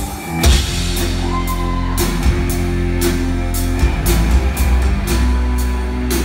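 Live rock band playing at full volume: drum kit, bass and electric guitar, with the bass and drums coming in hard about half a second in and a steady drum beat after that.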